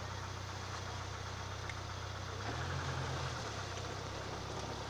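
An SUV's engine running steadily at low revs, revving up briefly about halfway through and then settling back.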